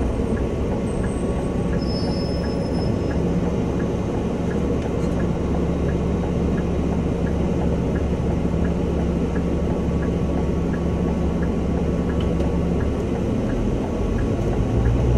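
Cab noise of a Scania OmniLink city bus at low speed and waiting at a light: a steady low engine hum with a faint regular ticking, about two ticks a second. The hum changes about two seconds before the end.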